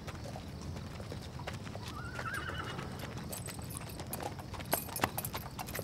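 A horse's hooves clip-clopping on a paved road, the strikes starting about five seconds in, after a short wavering whinny about two seconds in.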